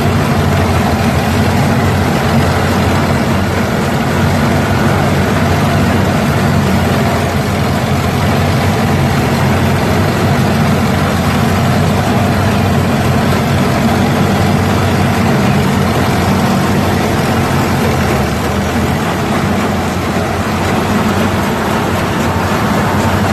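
Allis-Chalmers WD tractor's four-cylinder engine running steadily under load while it drives a two-row mounted corn picker through standing corn, the picker's working noise mixed in with the engine.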